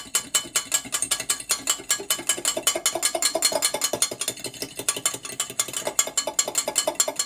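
A fork whisking oil and lemon-juice dressing in a glass measuring jug: a rapid, even clicking of metal tines striking the glass, kept up the whole time.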